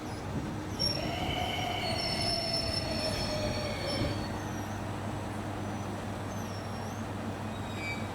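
Train wheels squealing on the rails at low speed over a steady rumble, a high multi-pitched squeal lasting about three seconds, starting about a second in.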